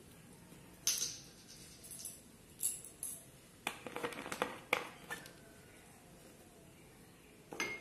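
Plastic soft-drink bottle and its cap being handled: scattered light clicks and knocks, with a quick run of clicks about four seconds in.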